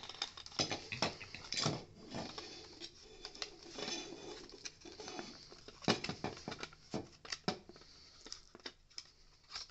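A flexible rubbery hose being forced by hand into a clear plastic vacuum cleaner head housing: irregular plastic clicks, knocks and scraping, with sharper snaps about two seconds in and again near six seconds.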